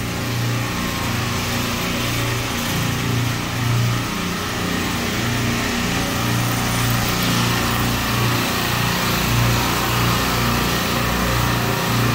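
A supermarket refrigeration rack of Bitzer compressors running: a steady, loud machine-room hum over an even hiss.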